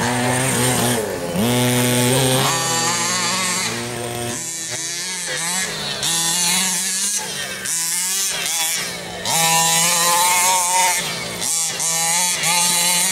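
Two-stroke gasoline engine of a 1/5-scale RC car revving up and down repeatedly, the throttle dropping off briefly several times between bursts.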